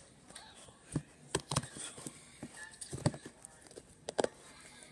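Slime being squished and pressed in the hands, making a string of irregular sharp clicks and pops.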